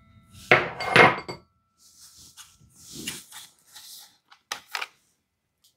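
Kitchen dishes and utensils being handled: two loud knocks about half a second and a second in as a spatula and a small ceramic dish hit the mixing bowl and counter, then softer scrapes and clinks. Near the end come two sharp clicks as the plastic cap of a carton is opened.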